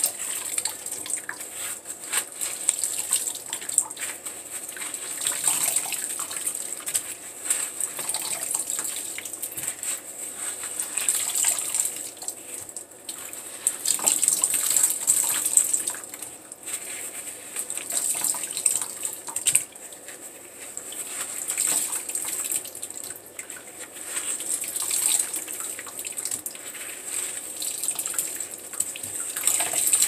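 Wet floral foam soaked in soapy water being squeezed and crushed by hand: waves of squelching and fine crackling as the foam crumbles, with soapy water dripping and splashing into the sink, swelling and easing every few seconds with each squeeze.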